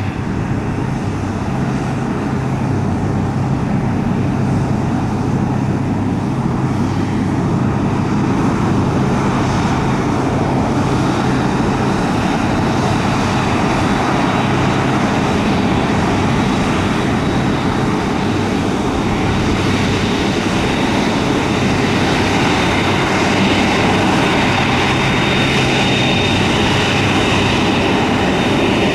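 A Boeing 747-8F's four GEnx-2B turbofans running at taxi power. The jet sound is a steady rumble with a low hum, and a high fan whine that grows stronger about two-thirds of the way through.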